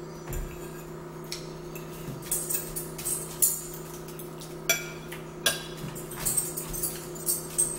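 A metal fork clinking and scraping against a plate in a few separate sharp clicks while food is eaten, over a steady hum.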